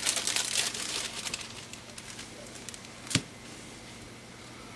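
Thin plastic crinkling and crackling as it is handled close by, for about a second and a half, then a single sharp click about three seconds in.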